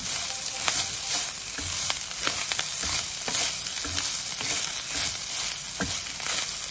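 Cooked rice being stirred into a sizzling spice tempering in a kadai with a wooden spatula: a steady frying hiss with frequent sharp scrapes and knocks of the spatula against the pan.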